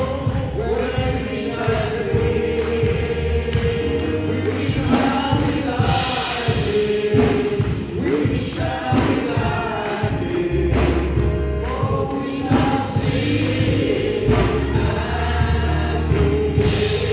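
Gospel music: a choir singing over a band, with a sustained bass line and a steady drum beat.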